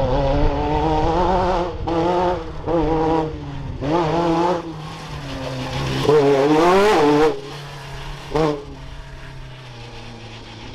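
Off-road race buggy engine revving hard, its pitch wavering as the throttle works. It climbs to a loud peak about six to seven seconds in, then falls away to a quieter, steady low engine note.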